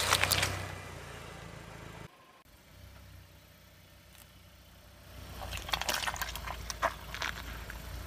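Car tyre crackling and squelching as it rolls onto a toy bear in a puddle of pink slime and squashes it, starting about five seconds in, over the low hum of the idling car engine. Before that, the crackle of the tyre squashing lemons fades out.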